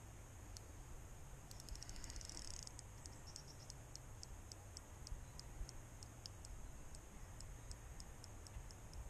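Spinning fishing reel clicking while a hooked carp is played on the rod: scattered sharp ticks, with a fast run of clicks about one and a half seconds in.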